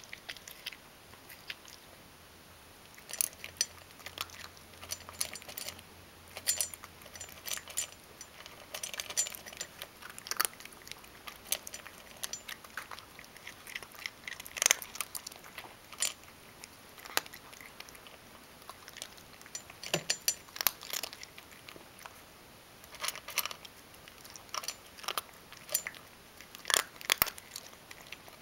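Ragdoll cat chewing dry kibble: irregular clusters of sharp crunches.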